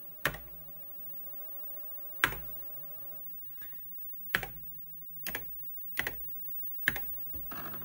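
Single key presses on an Osborne 1 computer's keyboard, about six separate clicks spaced one to two seconds apart, each with a short low thud.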